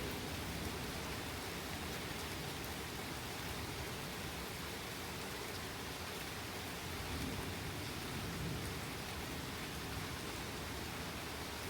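Steady heavy rain falling during a thunderstorm, with a faint low rumble swelling slightly around the middle.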